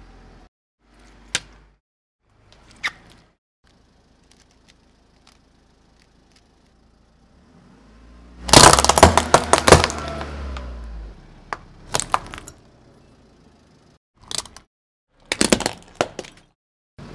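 Car tyre rolling onto a clear plastic box of hard-shelled sweets, cracking the plastic and crunching the sweets in a dense run of sharp cracks about halfway through. Single sharp snaps and cracks come before and after it.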